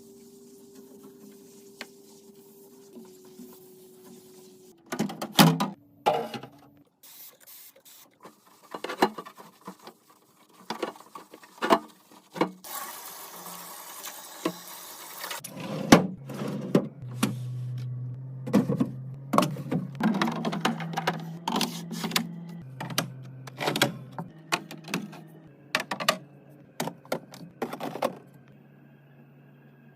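Household items and containers being handled and set down: a string of clicks, taps and knocks. About halfway through comes roughly three seconds of hissing noise.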